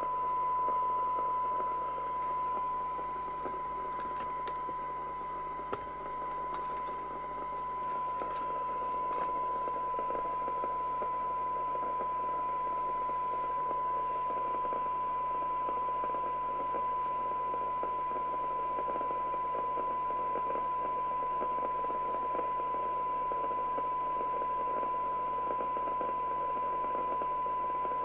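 Steady whistle-like test tone with a haze of hiss behind it: the Jopix AP6 CB radio's receiver putting out the tone of a test signal during a SINAD sensitivity measurement. A few faint ticks of a pen on paper come between about four and nine seconds in.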